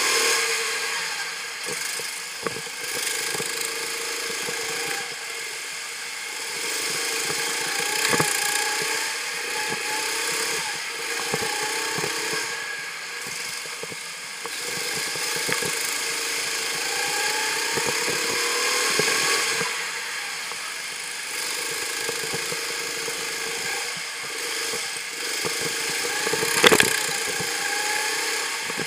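Go-kart engine heard from on board, repeatedly revving up in rising sweeps and dropping back, with frequent knocks and rattles from the kart. A single sharp bang near the end is the loudest sound.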